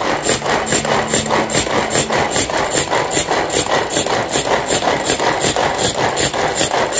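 Hand-pulled cord food chopper being worked over and over, its blades whirring through a wet chili-garlic sauce in a plastic bowl: an even rasping whirr at about three strokes a second, mixing the sauce.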